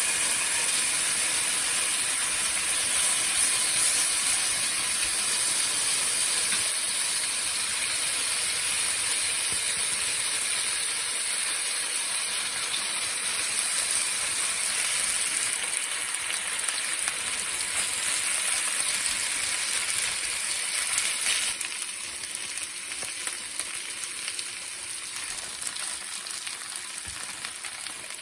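Okonomiyaki batter frying in an oiled pan, a steady sizzle that drops quieter about three-quarters of the way through.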